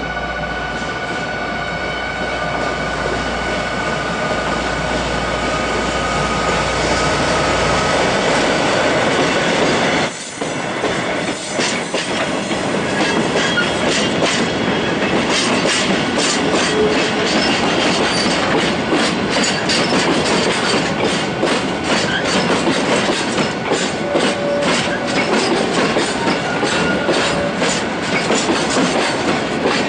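For the first few seconds a diesel locomotive's engine runs with a steady low hum as it passes. Then a string of loaded cement tank wagons rolls slowly by, the wheels clicking over the rail joints again and again, with short wheel squeals.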